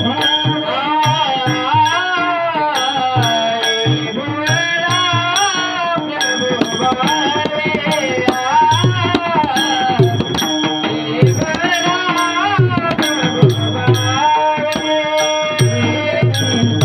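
A Varkari kirtan tune sung by a male kirtankar in long, sliding phrases over steady held drone notes, with drum strokes and a regular tick of small hand cymbals keeping the beat.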